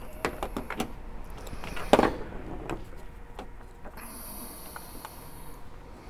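Small clicks and knocks of handling at a Hornady case trimmer as a cordless drill driver is fitted to its cutter shaft, with one sharper knock about two seconds in. A short high whine sounds about four seconds in.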